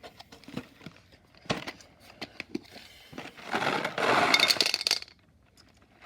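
Hard gumballs rattling and clattering against each other and a container, a few scattered clicks at first and then a dense rattle for about two seconds that stops suddenly.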